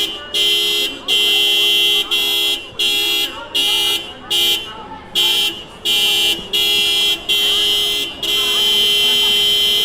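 A Honda car's horn honking repeatedly: a string of short blasts, about one to two a second and one a little longer, then a long held blast from about eight seconds in.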